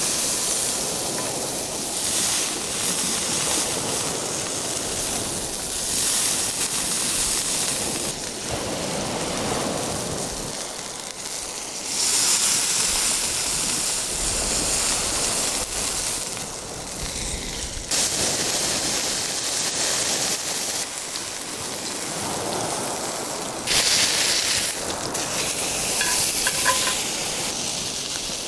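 Thick beef steak searing in a hot cast-iron skillet, a steady fat-spitting sizzle that grows louder and softer in sudden steps.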